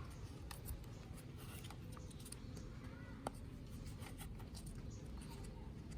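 Faint scattered clicks and light rustling of something being handled, with one sharper click about three seconds in.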